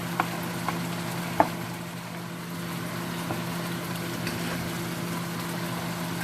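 Pieces of pork sizzling steadily in a frying pan, with a few sharp clicks, the loudest about a second and a half in.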